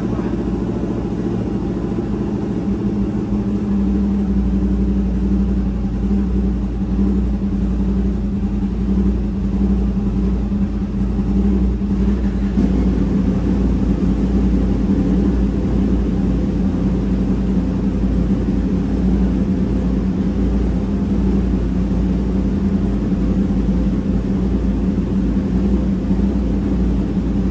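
Yamaha crossplane inline-four superbike engine idling steadily through an SC Project titanium exhaust, a low, even drone without revving. The tone shifts slightly about halfway through.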